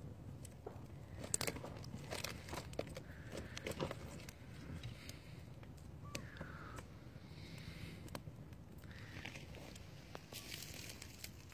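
A freshly lit campfire of dry grass and sticks crackling, with scattered small snaps and pops.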